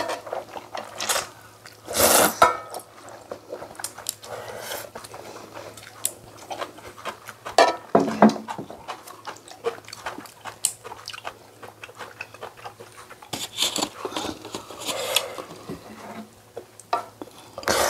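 Someone eating oyster and maesaengi seaweed noodle soup: loud slurps of noodles and broth several times, with chewing and small clicks of chopsticks or a spoon against the bowl in between.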